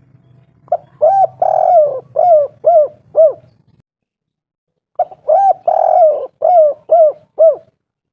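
Spotted dove (tekukur) cooing its 'kuk 3' song twice: each phrase a few short notes, one long drawn-out coo, then three short 'kuk' notes at the end, with a pause of about a second and a half between the phrases.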